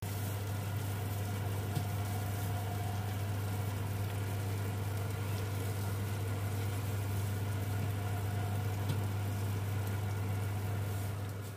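Electric oven running with its door open: a steady low motor hum, the oven's fan, with a rushing air noise above it.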